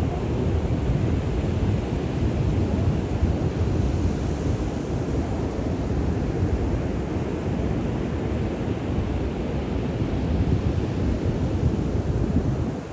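Ocean surf breaking on the beach, mixed with wind buffeting the microphone: a steady low rush of noise.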